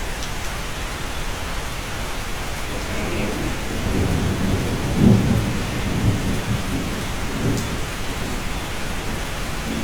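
Steady rain falling on a cabin, with a low roll of thunder that builds about three seconds in, is loudest around five seconds and rumbles away by about eight seconds.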